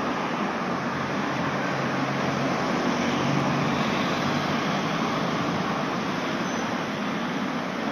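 Road traffic passing: a steady hiss of car tyres and engines, swelling a little about three to four seconds in as cars go by.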